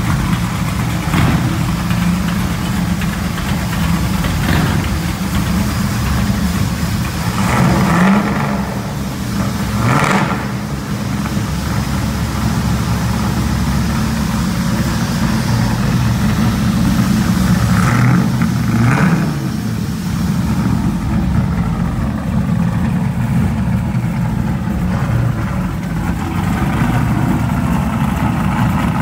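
Loud exhaust of a 1961 Chevrolet Impala's 383 stroker small-block V8, idling with a deep rumble and given several short blips of the throttle in the first two-thirds, then running steadily as it rolls slowly.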